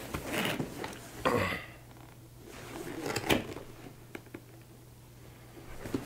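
A large cardboard box being handled and shifted: a few scraping, rustling noises, with a sharper knock a little past three seconds in.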